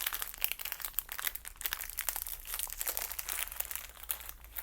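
Plastic packaging crinkling as it is handled, an irregular run of small crackles.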